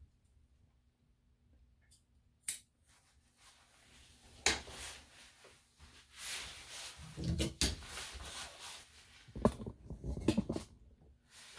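A single sharp click, then several seconds of irregular rustling, rubbing and knocking handling noises, with no steady motor hum.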